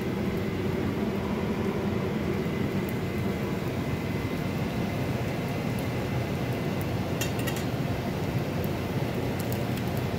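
Lumpia frying in oil in a stainless steel pan: a steady sizzle, with a few sharp crackles about seven seconds in.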